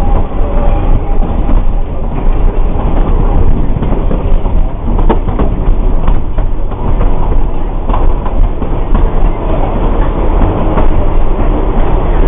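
Narrow-gauge forest railway train running, heard from on board: a continuous loud rumble of the wheels on the track, with scattered knocks from the rail joints.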